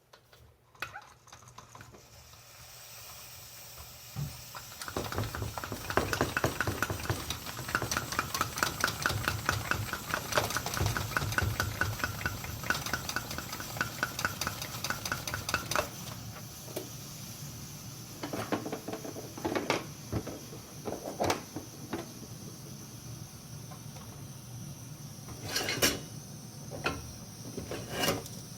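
Cooking sounds of metal cookware: a steady hiss under a fast, rhythmic metallic rattling, about three or four strokes a second, for roughly ten seconds. Then scattered clinks and knocks.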